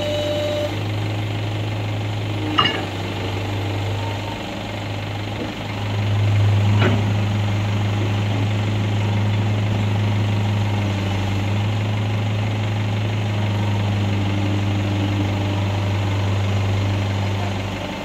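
JCB 210LC crawler excavator's diesel engine running steadily as it swings and digs, with a low, even drone that gets louder from about six seconds in. Two short sharp knocks, near three and seven seconds in.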